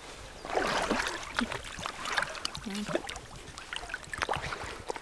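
A hooked carp splashing and thrashing at the surface in shallow water close to the bank as it is played in, with a rush of water about half a second in and a run of short, sharp splashes after.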